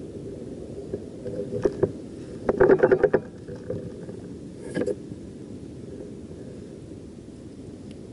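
Fishing gear knocking and clicking on a kayak as a rod is grabbed: a few sharp knocks about a second in, a quick rattling run of clicks about two and a half seconds in (the loudest), and another short clatter near five seconds, over a steady low background hiss.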